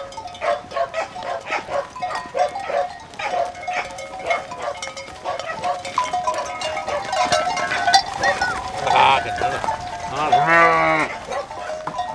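Bells on a flock of Merino sheep clanking and ringing as the animals jostle and move. Near the end a sheep bleats twice, the second a long, wavering bleat.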